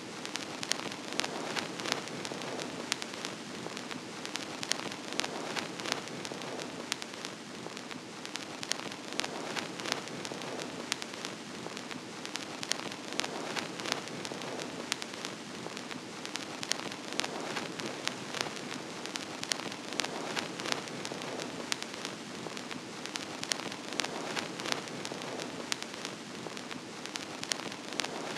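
Vinyl record surface noise: a steady hiss with dense, irregular crackles and pops.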